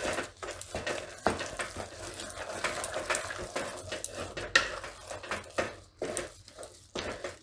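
Wooden spatula stirring a thick, stiff rice-and-lentil dough in a metal pot: irregular scraping and knocking against the pot.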